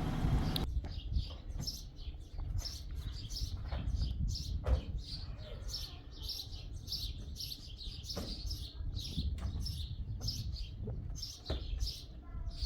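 Small birds chirping over and over in short, quick notes, over a low rumble, with a few sharp knocks; the loudest knock comes a little before the halfway point.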